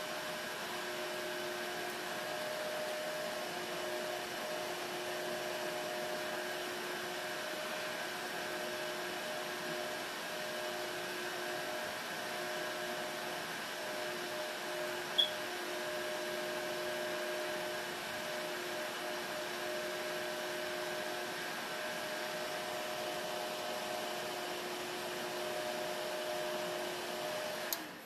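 Makartt ZC-044 nail fan dryer blowing warm air: a steady whirring fan with a hum, and a single faint tick about halfway through. It cuts off suddenly near the end as the hand is withdrawn from its sensor.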